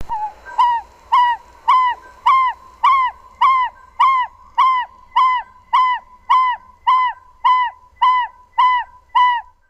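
African barred owlet calling: a long, even series of about seventeen short, arched notes, a little under two a second, kept up at the same pitch throughout.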